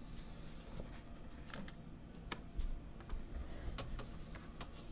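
A handful of short, sharp clicks and taps spaced irregularly over a low steady room hum, the loudest about halfway through.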